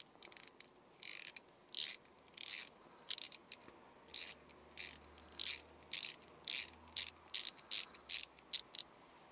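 Ratcheting tap handle with a 5/16-18 tap, clicking in short runs about twice a second as it is worked back and forth chasing threads in a drilled-out broken-bolt hole.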